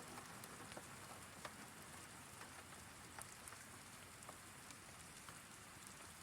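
Faint steady rain, an even hiss with scattered single drops ticking on a surface.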